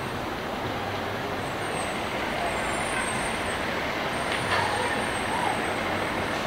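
Steady city street traffic noise, a continuous hum and rush of passing vehicles with faint voices mixed in.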